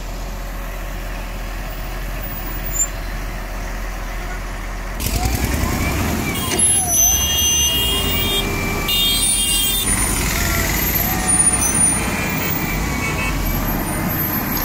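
Heavy diesel engines of a Hindustan 2021 wheel loader and a Tata 2518 tipper truck running as the loader tows the stuck truck out backwards on a rope. The engine noise grows louder and rougher about five seconds in as the pull takes load, with high whistling tones at times after that.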